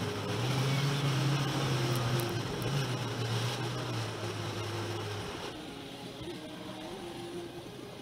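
Car cabin noise heard from the dashcam while creeping in stop-and-go traffic: engine and road hum with a low steady drone that fades out about five seconds in.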